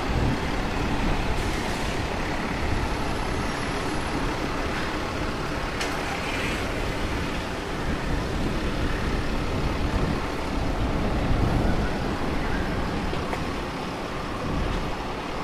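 City street traffic: a steady wash of noise from passing vehicles.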